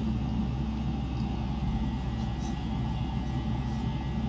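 Steady low background hum with no distinct knocks or clicks.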